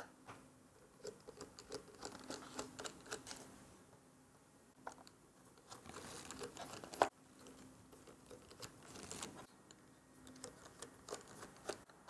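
Small precision screwdriver working the pentalobe screws of a MacBook Air's aluminium bottom case: faint scattered ticks and short scratchy stretches of the bit on the screws and case, with one sharper click about seven seconds in.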